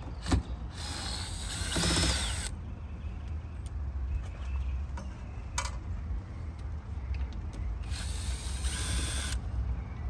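Cordless DeWalt drill/driver backing the screws out of an RV door latch, running in two bursts of about two seconds and a second and a half, its motor whine rising in each, with a few light clicks between.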